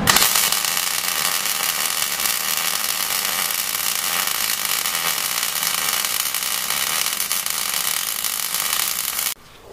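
Wire-feed welder arc crackling steadily as a bead is laid along a steel bucket's leading edge; the arc stops suddenly about nine seconds in.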